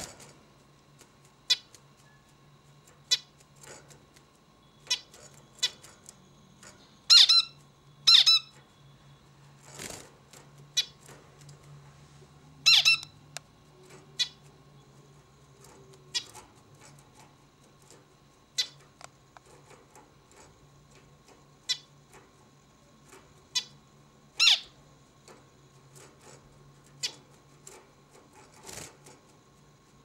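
Male zebra finch giving short, separate calls, one every second or two, a few of them much louder than the rest.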